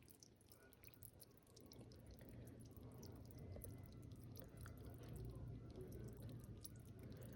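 Fish feeding on bait at the water surface: faint, irregular small clicks and pops from their mouths taking the food, over a steady low hum.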